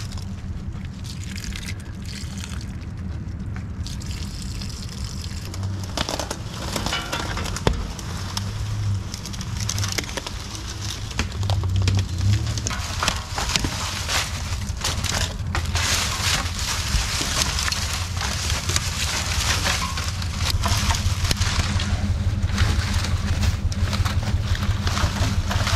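Dry sticks and leaves crackling and snapping as tangled brush is pulled from under a boat trailer, over the steady low hum of an idling truck engine.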